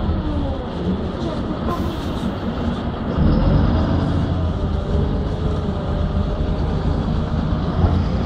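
City bus engine and drivetrain heard from inside the passenger cabin, a steady low rumble with a whine that rises and falls in pitch. The engine gets louder about three seconds in.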